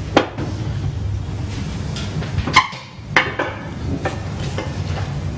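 Plates and baking trays being handled: a few sharp knocks and clinks, one just after the start and two more a little past halfway, over a steady low hum.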